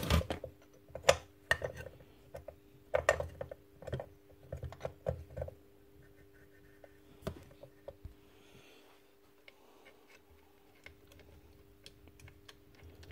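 Clicks and knocks of metal and plastic parts being handled and set on a workbench as the aluminium cylinder housing of a dismantled Makita cordless nail gun is fitted back on. The knocks come thick in the first half and thin out to a few later, with a faint steady hum behind them.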